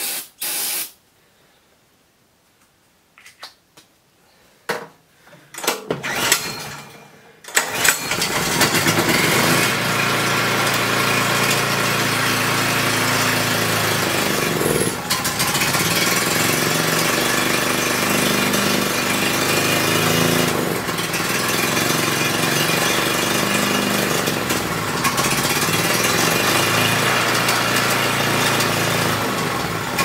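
Portable generator's gasoline engine being pull-started: a few short cranking bursts, then it catches about seven seconds in and runs steadily, on full choke after a shot of starting fluid. The owner says it is starved for fuel and expects to have to clean out the carburetor.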